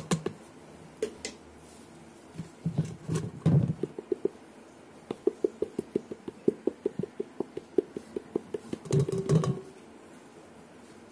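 Plastic sieve full of blended pineapple pulp being tapped by hand over a steel bowl to push the juice through: a quick run of light taps, about six a second, in the middle, with a few louder knocks and scrapes before and after.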